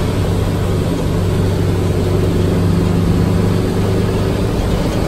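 Fire engine's engine running steadily as the truck cruises, heard from inside the cab as a steady low drone.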